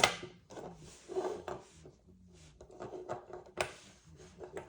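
Handling of titanium pens: a few sharp clicks and knocks with lighter ticks between, the loudest right at the start and another about three and a half seconds in.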